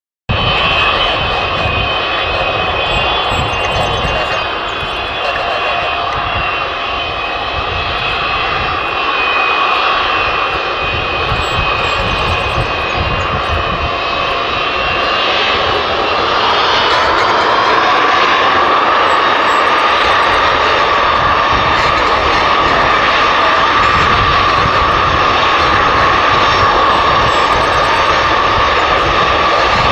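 The six Progress D-18T turbofan engines of an Antonov An-225 Mriya running at taxi power: a steady jet roar with a high-pitched whine. About halfway through, the whine shifts up in pitch and the roar grows louder as the aircraft taxis closer.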